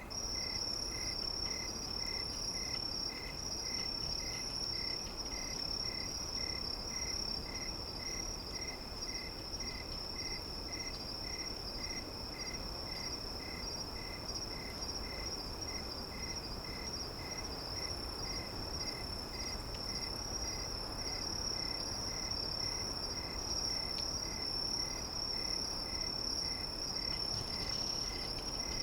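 Insects trilling steadily at a high pitch, with a second, lower chirp pulsing about twice a second, over a soft background hiss. The high trill starts suddenly at the very beginning.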